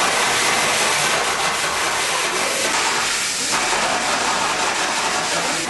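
Water spraying and spreading across an office floor, a loud steady hiss.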